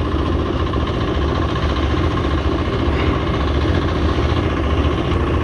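Small engine on a wooden boat running steadily at idle, a dense, even chugging with a strong low end.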